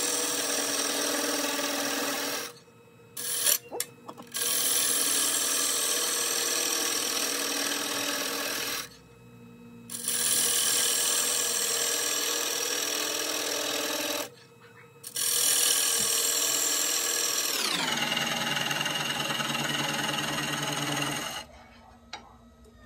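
Wood lathe turning an ash bowl blank while a bowl gouge hollows it: a steady rasping hiss of the cut over the machine's whine, broken three times by short pauses as the tool comes off the wood. Near the end the whine drops in pitch as the lathe slows, the cutting stops, and the lathe winds down.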